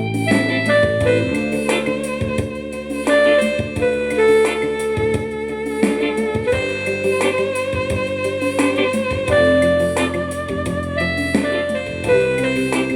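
Instrumental music: a melody of held notes with a slight waver, played over steady sustained chords in the low range.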